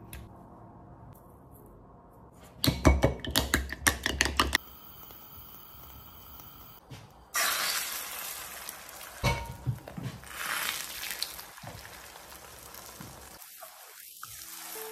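A fork beating eggs in a ceramic bowl, a quick run of clinks for about two seconds. Then beaten eggs hit a hot non-stick frying pan and start sizzling, and keep sizzling as they are stirred.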